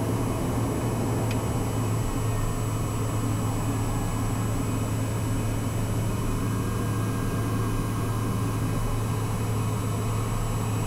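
Daher TBM 910's Pratt & Whitney PT6A-66D turboprop idling on the ground, a steady low drone with a faint high whine, heard inside the cockpit. A light click about a second in.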